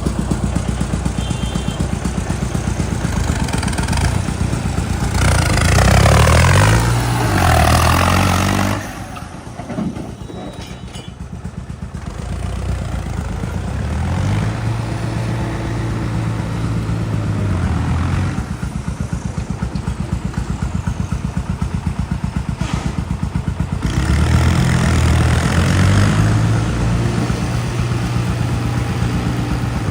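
New Holland 3630 tractor's diesel engine revving up and easing off several times, with a sharp drop in engine noise about nine seconds in.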